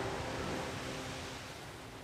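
Steady wash of water and waves fading slowly out, with the last held notes of music dying away in the first half second.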